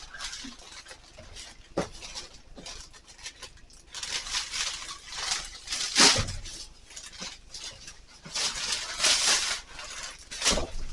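Packaging being handled as a box is opened and unpacked: rustling spells and a few knocks and clunks.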